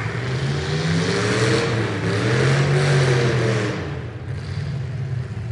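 Demolition derby car engines revving, the pitch rising and falling, easing off about four seconds in.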